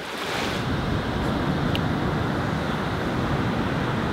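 Steady rush of surf washing over the sand, with wind buffeting the microphone; the noise swells in just after the start and then holds level.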